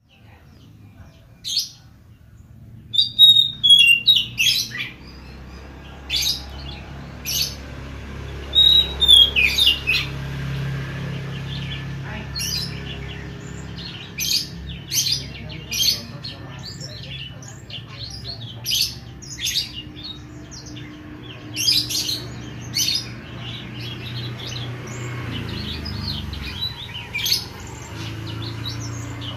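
Oriental magpie-robin (kacer) singing in full voice: a long, lively run of sharp, high chirps and whistles, with a few downward-slurred whistles in the first ten seconds. A low steady hum runs underneath.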